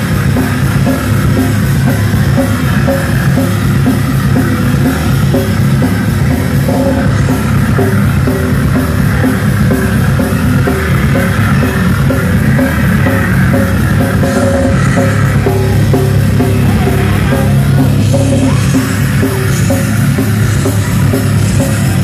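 A live crust punk band plays at full volume: heavily distorted guitars and bass over fast, pounding drums.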